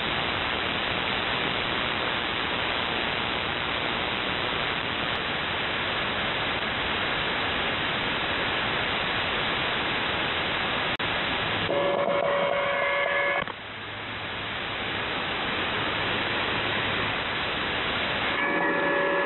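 Shortwave radio static: band noise hiss from an SDR receiver tuned in upper sideband to the 4724 kHz HFGCS channel, with no voice traffic on it. About twelve seconds in, the hiss gives way for under two seconds to several steady whistling tones, and steady tones come in again near the end.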